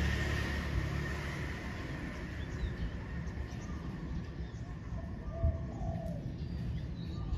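Spotted dove cooing, one low phrase a little past the middle, with small birds chirping faintly. A low rumble fades out in the first second or two.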